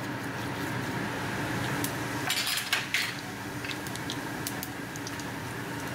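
Cumin seeds sizzling steadily in hot olive oil for a tadka, with a few sharp clinks of kitchenware about two to three seconds in.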